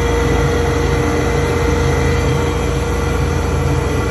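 Woodshop machinery, the planer and its dust collector, running steadily with no board feeding through: an even drone with a constant hum and a steady mid-pitched tone.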